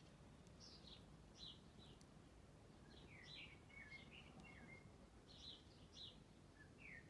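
Faint birds chirping outdoors, short falling notes in scattered groups of two or three, over a low background rumble.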